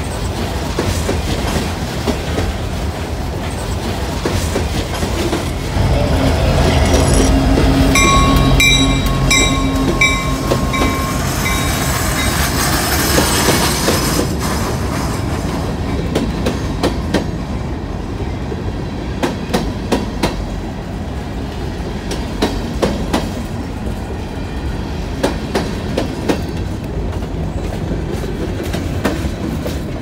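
Norfolk Southern local freight train of boxcars and covered hoppers rolling past close by: a steady rumble and clatter of wheels on the rails. It grows louder about six seconds in, with a pulsing high wheel squeal for a few seconds. Then comes a run of sharp clicks over the rail joints until the last car passes.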